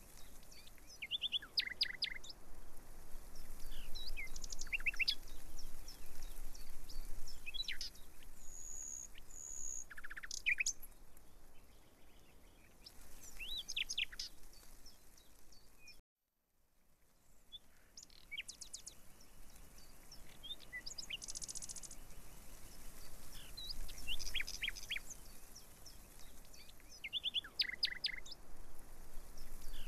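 Birds chirping and calling: many short, high chirps and quick trills in clusters, over a faint steady background hiss. The sound cuts out completely for about half a second around the middle.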